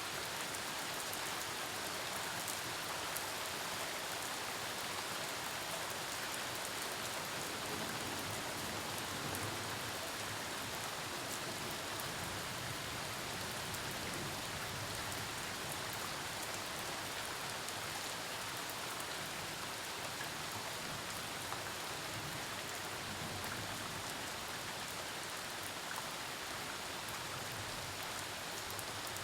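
Steady rain falling during a thunderstorm, a dense even patter of drops on surfaces with scattered sharper drop ticks.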